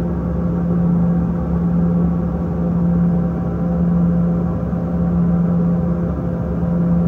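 Airliner cabin noise in the climb after takeoff: the engines' steady drone, a strong constant low hum with a fainter higher tone over the rush of airflow.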